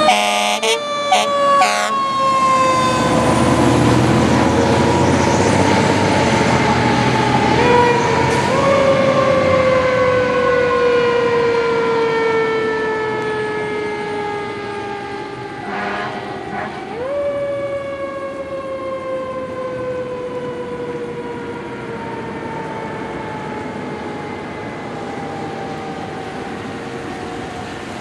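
Fire engine's Federal Q mechanical siren winding slowly down in pitch and wound back up twice, with short air horn blasts in the first two seconds and once more about halfway through. The siren fades as the truck drives away.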